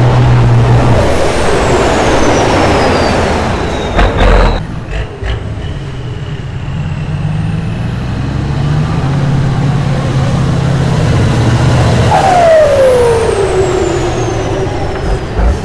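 Heavy off-road trial truck's engine running hard under load in mud. It drops out briefly about four seconds in, then builds again, and a whine falls in pitch about twelve seconds in.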